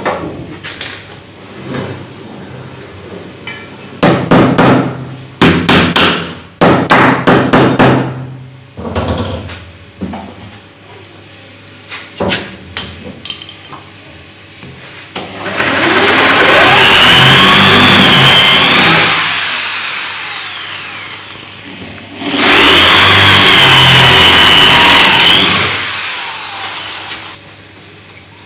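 Corded electric drill with a spade bit boring two dowel holes through a wooden jig into the board beneath, in two long bursts with a whine that rises and falls. Earlier, a quick run of sharp knocks on the wood.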